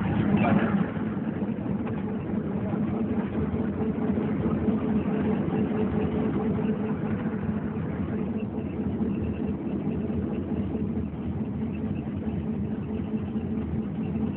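Vehicle engine idling, a steady even hum.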